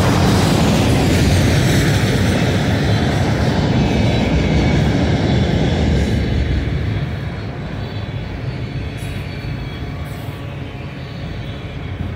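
Freight train of autorack cars rolling past, its wheels running on the rails in a steady low rumble. It eases off somewhat about seven seconds in.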